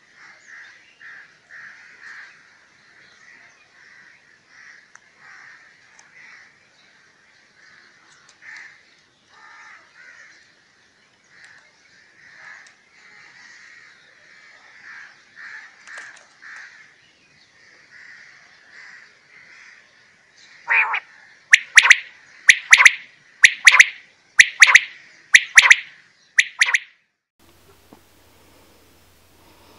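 Quails calling: many faint, quick repeated calls, then a nearby bird calling loudly in sharp notes in pairs, about one pair a second, for several seconds before it stops.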